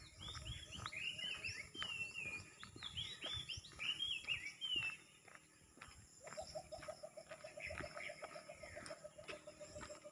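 Birds calling: a string of short, curving whistled notes through the first half, then from about six seconds in a fast run of low repeated notes, about six a second, over a faint steady high hiss.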